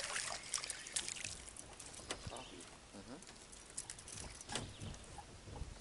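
Light splashing with scattered clicks and taps, busiest in the first second and a half, as a small fish is reeled up to the boat and lifted out of the water.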